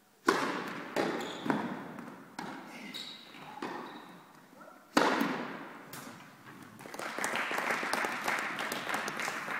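Tennis racket striking the ball on a serve, a sharp crack with a reverberant tail in a large indoor hall. A string of further ball knocks and bounces follows, with a second hard hit, the volley, about five seconds in. Near the end come denser voices and lighter knocks.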